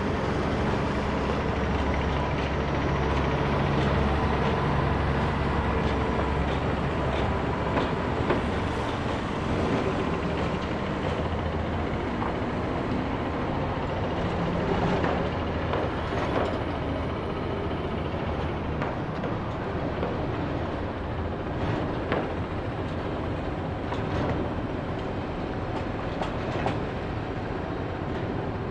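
Construction site ambience: a machine's engine runs steadily, louder in the first half, under a wash of site noise, with scattered sharp knocks from work going on.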